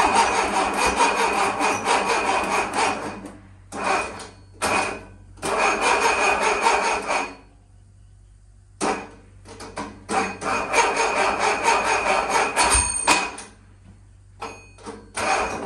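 VW Type 1 stroker engine on a run stand being cranked over by its starter without firing, in several bursts of a few seconds each with short pauses between: turning it over to prime it before its first start.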